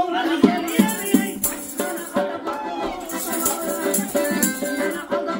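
Live Khorezmian xalfa folk music: a woman singing over a piano accordion, with a hand-struck frame drum and a tambourine whose metal jingles she shakes in repeated bright rattles.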